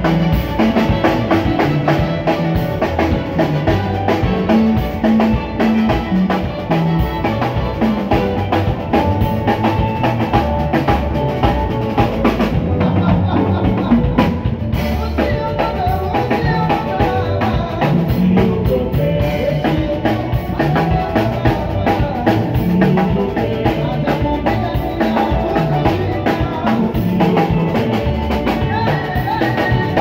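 Praise band playing live: a drum kit keeping a steady beat under electric guitar. The cymbals drop out for about two seconds around the middle.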